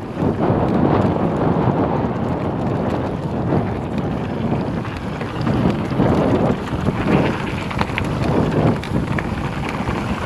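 Wind rushing over the microphone mixed with the rumble of a Scott e-mountain bike's tyres on a dirt trail at speed, with a few sharp rattles from the bike near the end.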